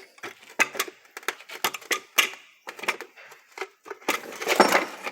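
Irregular metal clinks and knocks of tools and parts being handled as a dual-mass flywheel is taken apart, with a longer, louder stretch of scraping clatter about four seconds in.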